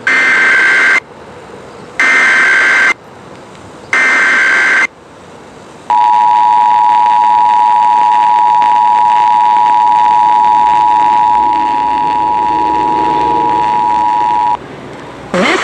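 Emergency Alert System header: three one-second bursts of SAME digital data tones, a second apart, then the two-tone EAS attention signal, two steady tones sounded together for about nine seconds. Together they open a Required Monthly Test.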